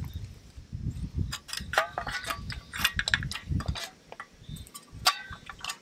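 A gas canister handled and fitted into the canister holder of a folding portable camp stove: a run of clicks and metallic clinks, then one sharp click about five seconds in. A low rumble lies underneath.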